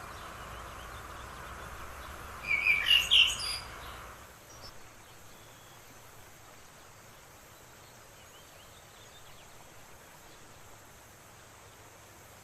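Wild songbird calling in a forest: a loud run of several quick chirping notes about two and a half seconds in, then only faint scattered chirps from other birds. A steady hiss under the first few seconds fades out about four seconds in.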